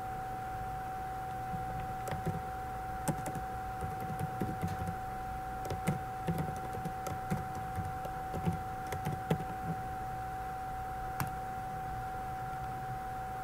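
Computer keyboard being typed on in a quick, irregular run of key clicks, then one more single click near the end, over a steady background whine and hum.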